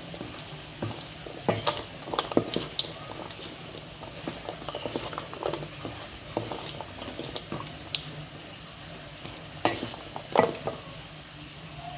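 Wooden spatula stirring caramel popcorn in a stainless steel bowl: popcorn rustling with irregular clicks and knocks of the spatula against the metal, loudest about two seconds in and again near the end.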